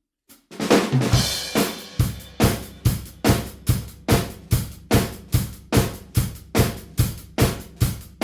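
Drum kit recorded in an untreated studio room with a bare brick back wall and no gobos or baffles: a hard-sounding, reflective room sound. It opens about half a second in with a run of hits and a cymbal wash, then settles into a steady beat of about two hits a second.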